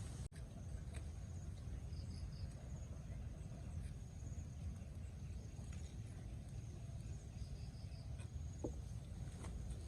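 Outdoor ambience: a steady low rumble with a faint high insect drone and two short runs of three high chirps, a couple of seconds in and near the end.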